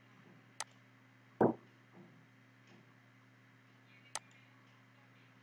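Two sharp computer-mouse clicks about three and a half seconds apart, with a louder short dull thump shortly after the first, over a steady low electrical hum.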